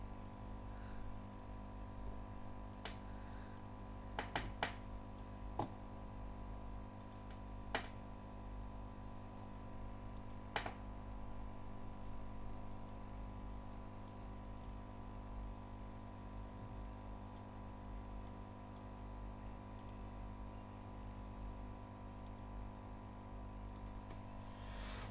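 A handful of sharp computer-mouse clicks, a quick cluster about four seconds in and single ones later, over a steady whine of several fixed tones from the energized stepper motors and DRV8825 drivers.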